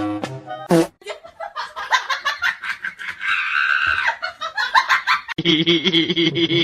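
A person laughing hard in quick, shaky pulses, after a short cartoon-style musical sting at the start. Near the end the sound cuts abruptly to a steadier, held voice-like sound.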